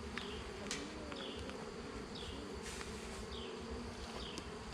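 Honey bees buzzing around an open beehive: a steady hum, with single bees' pitch sliding up and down as they fly past close by.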